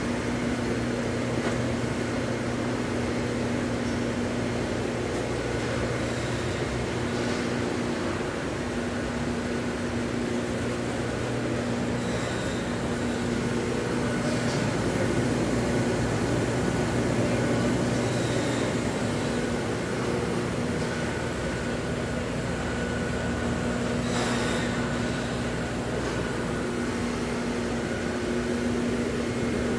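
Cemco 52-inch four-head planer sander running steadily: an even motor hum with a constant rush of air, and a brief click late on.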